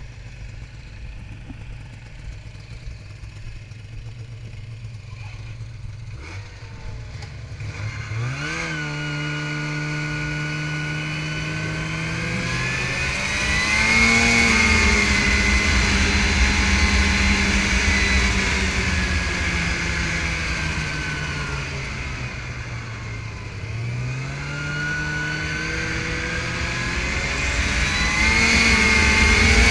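Snowmobile engine idling, then revving up about eight seconds in as the sled pulls away and runs along the trail. The engine pitch climbs, eases off through the middle and climbs again near the end with the throttle.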